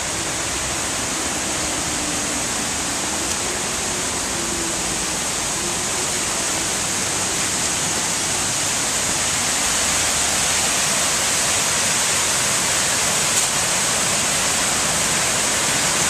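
Steady rush of flowing water from a stream or small waterfall, getting slightly louder in the second half, with a high even hiss over it.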